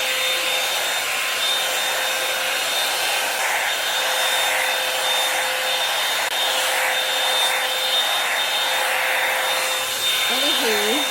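Hot air brush dryer running steadily: a continuous rush of air with a faint steady whine from the motor.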